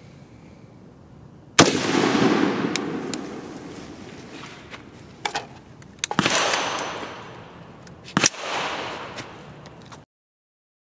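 Unsuppressed Ruger SFAR semi-automatic rifle on gas setting 3 firing M118LR 7.62×51 mm rounds: three loud shots, each trailing off in a long echo, with a few small clicks between them.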